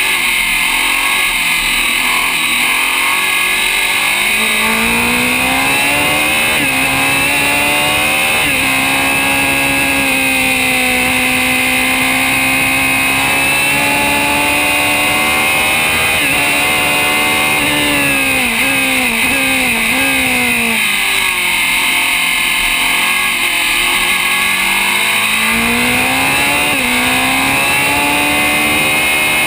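Historic open-wheel Grand Prix car's engine heard from onboard at racing speed. It climbs through upshifts about 7 and 8.5 seconds in, holds high revs, then drops through a quick run of downshifts around 19 seconds in, runs low through the corner, and winds up again near the end.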